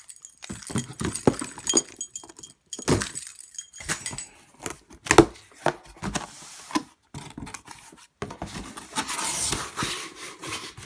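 Cardboard box and packaging being opened and handled: irregular rustles, knocks and scrapes, the sharpest knock about five seconds in, with a longer rustling slide near the end.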